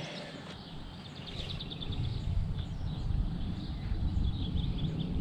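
Outdoor ambience: wind rumbling on the microphone, growing louder after about two seconds, with small birds chirping and a short rapid trill about one and a half seconds in.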